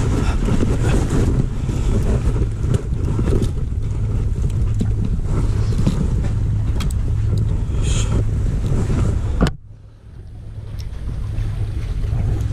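Steady low rumble of wind and sea on the microphone at the water's edge. About nine and a half seconds in there is a sharp knock, after which the rumble drops away abruptly and swells back over a couple of seconds.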